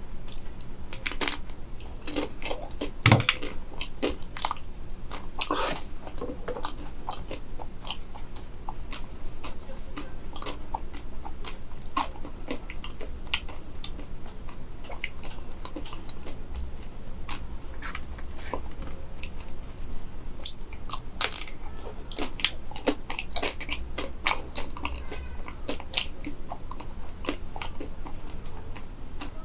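Close-up crunching and chewing of crispy-skinned banana, many irregular crisp bites and crackles.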